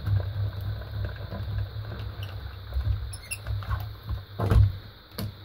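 Hand-cranked Spellbinders Sapphire die-cutting machine being cranked, its rollers pressing the cutting plates back through with a low rumble and rapid fine clicking, then a knock about four and a half seconds in and a small click near the end.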